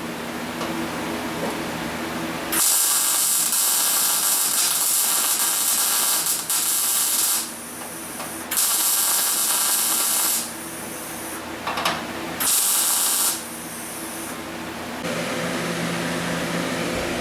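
MIG welder laying plug welds in a car's sheet-metal floor pan: the arc crackles and hisses in three bursts, the first about five seconds long starting between two and three seconds in, the next about two seconds, the last under a second. A low steady hum sits under the gaps.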